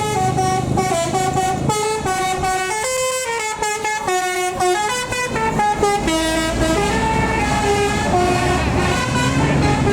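A basuri telolet horn, a multi-tone musical vehicle horn, playing a quick melody of short stepped notes. A vehicle's engine rumble grows louder in the second half.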